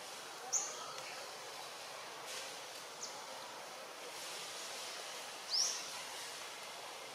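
Steady outdoor background hiss with three short, high bird chirps: one about half a second in, a fainter one near the middle, and a rising one near the end.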